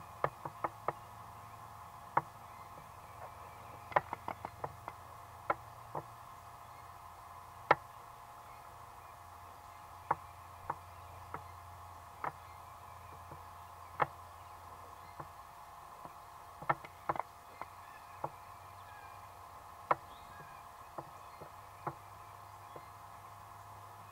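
Irregular sharp clicks and knocks, some coming in quick clusters of two to four, over a faint steady background hum.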